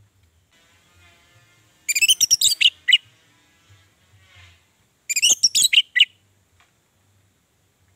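Orange-headed thrush singing: two short bursts of quick, varied, high chirping notes, about two seconds in and again about five seconds in.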